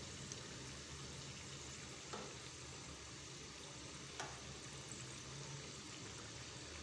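Vegetable pakoras deep-frying in hot oil on a medium-low flame: a faint, steady sizzle, with two light taps of the turning spoon about two and four seconds in.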